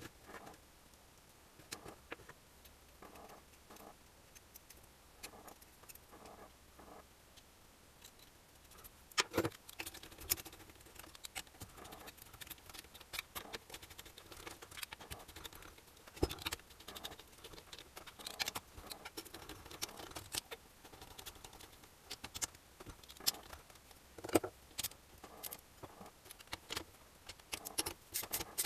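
A screwdriver and screws clicking and tapping against an aluminium engine crankcase as its cover screws are put in and driven home. The knocks are scattered and irregular, sparse at first and busier and louder from about nine seconds in.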